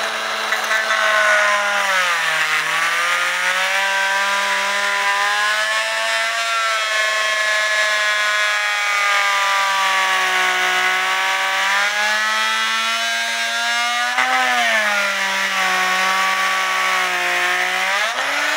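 Master Mechanic oscillating multi-tool running steadily, its blade vibrating against the glued edge of a wooden cuckoo clock's bellows. The motor's pitch sags and recovers a few times as the blade bites and frees, about two seconds in and again near the end.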